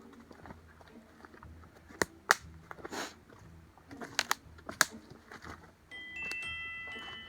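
A few sharp clicks and crunchy rustles, then about six seconds in, clear chime tones start ringing one after another at different pitches and overlap.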